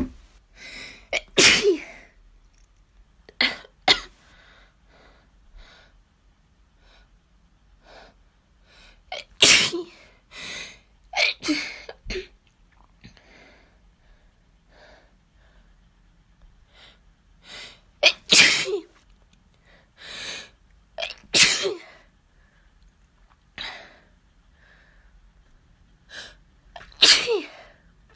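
A sneezing fit: about eight loud sneezes at irregular gaps of a few seconds, two of them close together near the start, with softer sounds between them.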